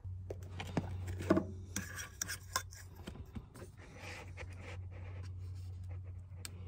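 Hands handling and fitting a length of white CPVC plastic pipe: irregular rubbing and scraping with a few sharp knocks, most of them in the first half, over a steady low hum.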